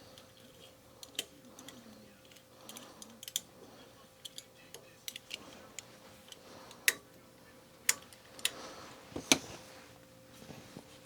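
Irregular small metal clicks and taps from set screws and hand tools being handled and fitted, with a few sharper, louder clicks in the second half.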